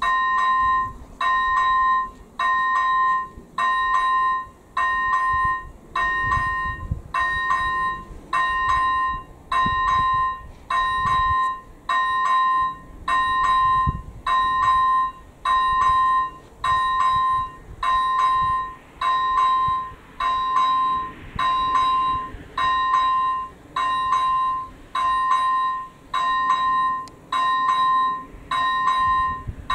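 Electronic level-crossing bell (AŽD ZV-01) on an active Czech railway crossing signal, sounding a bright electronic ding about once a second: the crossing is warning of an approaching train.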